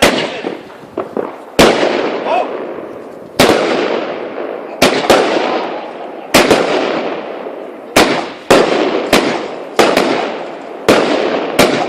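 Fireworks going off in a rapid series: about fourteen sharp bangs, roughly one a second with some in quick pairs, each followed by a crackling hiss that fades away.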